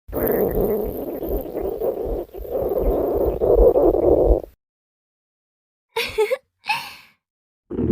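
Stomach growling sound effect: a long growl with a short dip about two seconds in, stopping after about four and a half seconds. Two brief sounds follow near the end.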